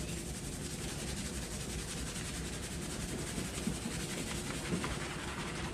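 Hands rapidly scrubbing a head of hair thick with shampoo lather: a steady wet rubbing of foam against hair and scalp.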